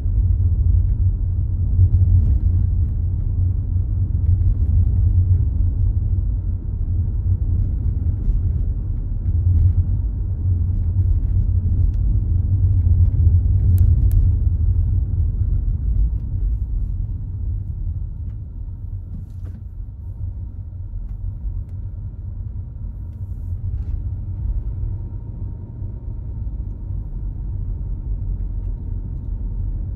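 Car driving, with a steady low rumble of road and engine noise heard from inside the cabin. The rumble eases off a little over the second half.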